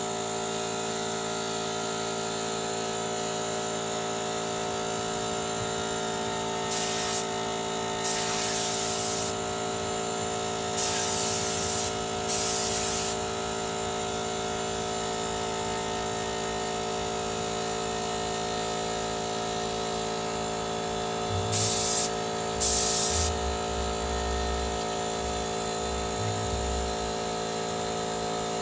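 A 24-litre Motomil air compressor running with a steady hum, while compressed air is let out in six short hissing blasts, four in a row a few seconds in and two more past the middle.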